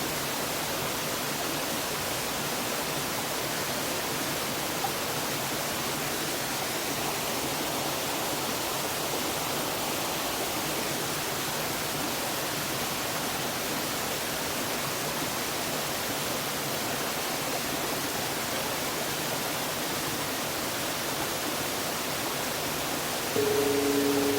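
Small waterfall rushing steadily. About a second before the end a large Buddhist temple bell (bonshō) is struck once, its low hum pulsing slowly.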